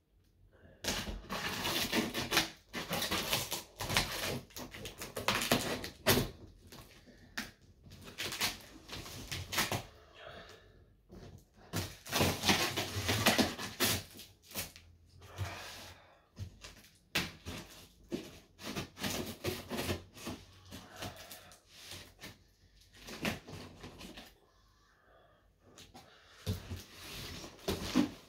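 Large cardboard guitar box being cut open and handled: packing tape slit and torn, cardboard scraping and rustling, with knocks and clicks as the box is moved, and a brief lull near the end.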